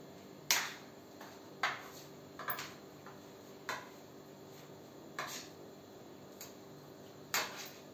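A metal spoon and steel dishes clinking against bowls: about six sharp, separate clinks, a second or so apart, as the mashed-potato filling is mixed and the bowls are handled.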